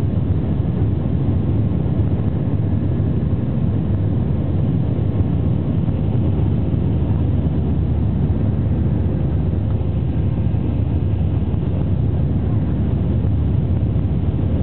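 Steady low roar of an Airbus A320-family airliner's jet engines and rushing air, heard from inside the cabin during the climb after takeoff.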